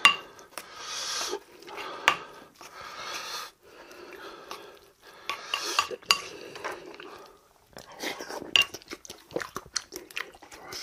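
Wooden spoon scraping and clinking against a ceramic bowl while stirring rice soaked in soybean-paste stew, with repeated sharp clicks between stretches of wet scraping.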